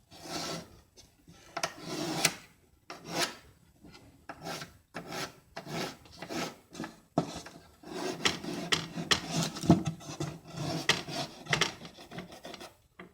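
Pencil drawing marking lines on wood: repeated scratchy strokes in irregular runs, broken by short pauses.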